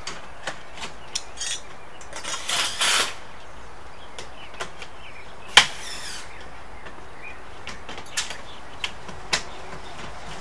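Roofing work on a metal roof: scattered taps and metallic clinks from tools on the sheet-metal panels, with a brief rushing scrape around three seconds in and one sharp metallic bang about five and a half seconds in.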